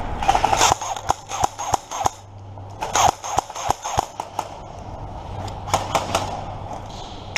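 Airsoft guns firing: scattered sharp shots, many in the first four seconds and fewer after.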